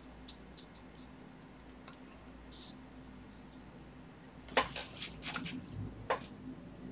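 Faint soft ticks of a watercolour brush dabbing on paper, then a cluster of sharp clicks and taps about four and a half seconds in, and one more a second and a half later, as the brush is lifted away from the paper.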